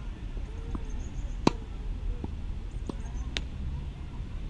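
Tennis balls struck by a racket: two sharp pops, the louder one about a second and a half in and another near the end, with a few fainter knocks between, over a steady low rumble.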